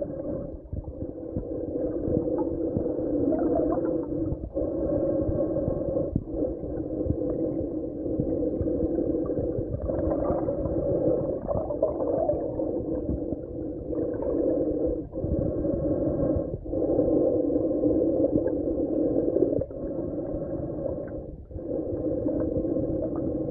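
Muffled underwater sound picked up by a camera in a waterproof housing: a steady low drone with several brief dips.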